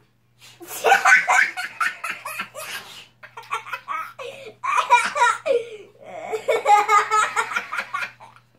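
A young boy laughing hard and at length, in three long bouts broken by short pauses about three and six seconds in.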